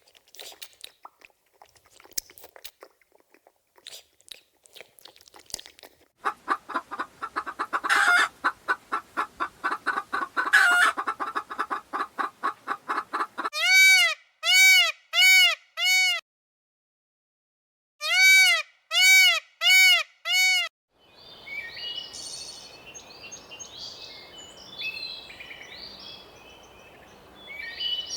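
Domestic poultry calling. First come scattered clicks, then a fast run of clucking. Next are two series of four loud, evenly spaced calls, with a pause between them. Last comes high chirping over a steady hiss.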